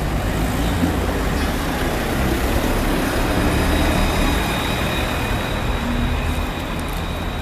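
Electric streetcar pulling away from the platform and gliding past close by: a steady rumble of steel wheels on the rails, with a faint steady high whine above it.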